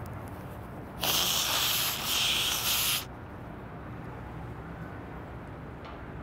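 A loud hissing rush of noise in two pushes of about a second each, starting sharply about a second in and cutting off suddenly a second later.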